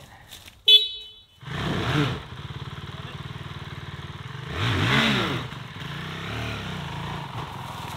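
Honda CRF450L's single-cylinder four-stroke 450 engine running at low speed on the trail, revved up and back down twice, about two and five seconds in. Just before the engine comes in there is a short loud beep-like sound.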